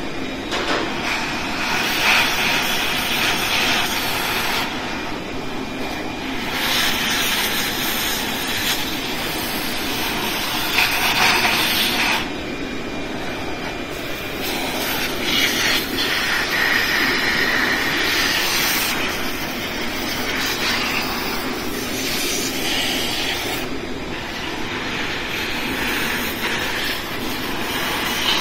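Shop vacuum running, its hose sucking air and loose debris out of the engine's intake ports. The rushing hiss grows brighter and duller every few seconds.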